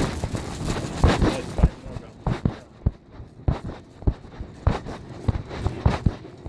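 Muffled handling noise from a phone recording inside a pocket while walking: fabric rubbing over the microphone and irregular dull thumps, about two a second, from the steps.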